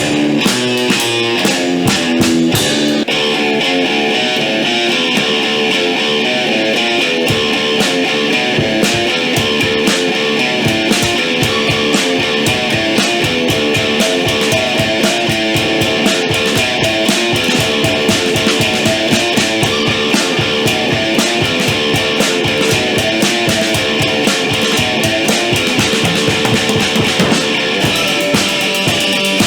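Rock band playing in a room: electric guitar riffing over a drum kit, with no singing. The guitar figure changes about three seconds in, and the drums keep a dense, steady beat.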